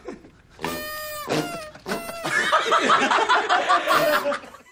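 A man farting: one long buzzing fart of about half a second, then two shorter ones that fall in pitch. It is followed by a group of men bursting into laughter and shouting.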